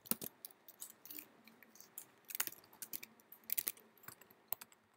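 Faint computer keyboard keystrokes: scattered single key clicks and a few quick runs of keys, as code is typed and edited.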